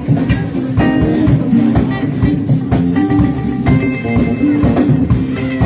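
Live band playing, electric guitar over bass and a drum kit with a steady beat.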